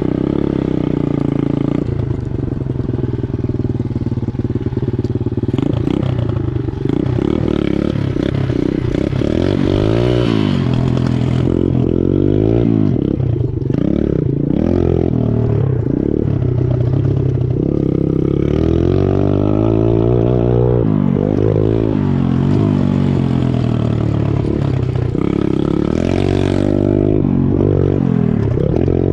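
Cheap Chinese pit bike's small single-cylinder four-stroke engine revving hard, its pitch climbing and dropping again and again as it is ridden, with scattered rattles and knocks from the bike.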